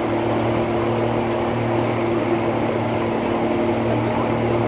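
Motorboat engine running steadily at speed while towing an inner tube, a constant hum over the rush of water.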